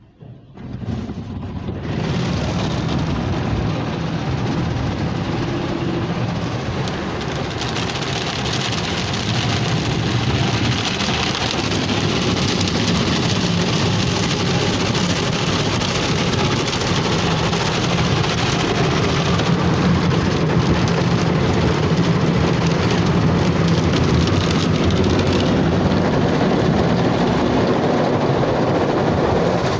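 Ryko Softgloss MAXX soft-touch car wash running over the car: water spraying and the wash brushes working against the body, a steady rush like heavy rain. It starts suddenly about a second in.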